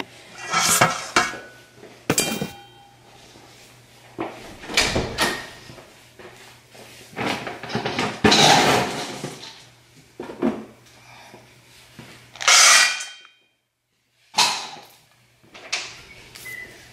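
A string of about eight separate clanks, knocks and scrapes from a stainless-steel dog bowl being handled and filled with dry dog food on a granite kitchen counter. A few of the clanks leave a short metallic ring.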